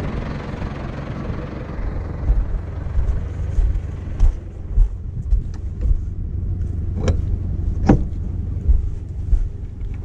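Tractor with a manure trailer running: a steady low engine rumble, with sharp knocks from the trailer about four, seven and eight seconds in.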